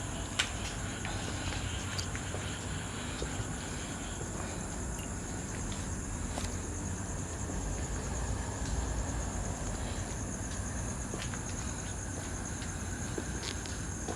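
Night insects, crickets among them, giving a steady high-pitched chirring chorus. A low rumble and a few sharp clicks sit under it, the loudest about half a second in.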